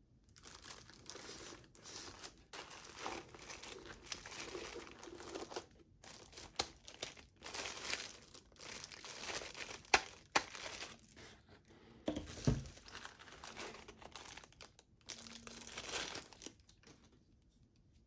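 Clear plastic wrapping crinkling and rustling in irregular bursts as the packaged desk lamp parts are handled and pulled from their foam insert. There is a sharp tap about ten seconds in and a low thump a couple of seconds later, and the crinkling dies away near the end.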